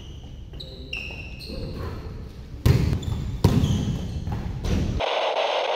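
Basketball bouncing on an indoor court amid short high squeaks of sneakers on the floor, with two loud bounces about three seconds in. A short burst of hiss comes near the end.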